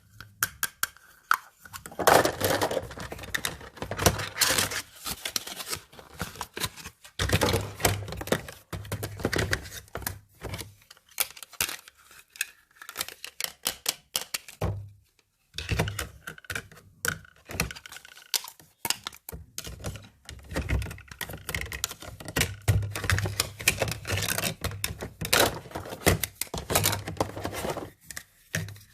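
Small plastic toy pieces being handled, with a busy run of clicks, taps and light knocks as parts are picked up, fitted together and set down, and a short pause about halfway through.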